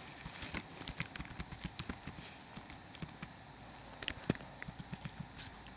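Computer keyboard keys tapped in a quick, irregular run of light clicks as a password is typed.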